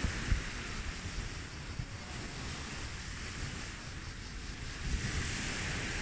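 Waves washing on the shore, the hiss swelling near the start and again about five seconds in, with wind buffeting the microphone in low rumbling gusts.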